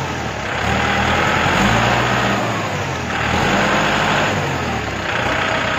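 Kubota L4508 tractor's diesel engine running and being revved up and down, its note rising and falling in a few swells.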